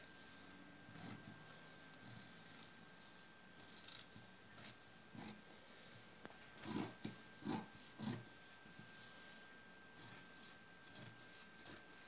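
Fabric scissors cutting through doubled dress fabric: a string of short, crisp snips at an uneven pace, roughly one a second, with brief gaps between them.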